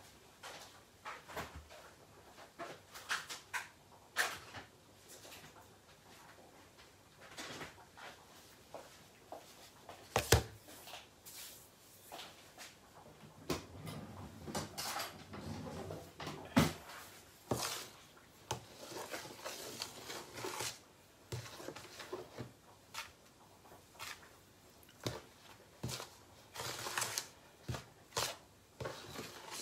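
Scattered knocks, clicks and rustles of kitchen things being handled and set down, with two sharper knocks about ten and sixteen seconds in.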